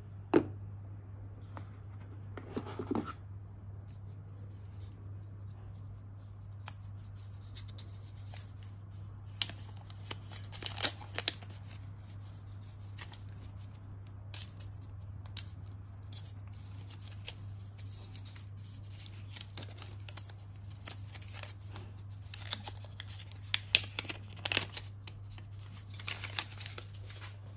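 Hands handling a plastic power adapter and its detachable plug head: a string of light clicks, scrapes and rustles, with a steady low hum underneath.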